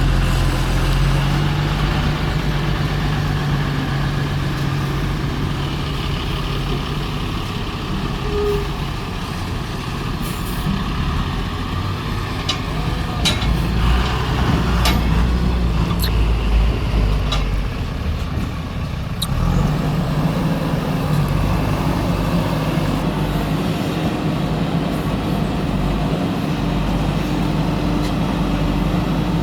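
Diesel engine of a JCB backhoe loader running steadily. In the middle it deepens and works harder for several seconds, with a few sharp clanks.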